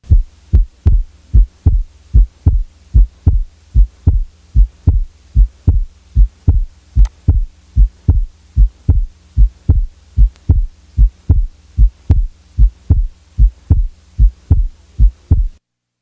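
Recorded human heart sounds beating steadily at about one beat a second, each beat a 'lub' (first sound) followed by a 'dub' (second sound). The second sound is split into two components about 30 ms apart, a normal split second heart sound. The beats stop shortly before the end.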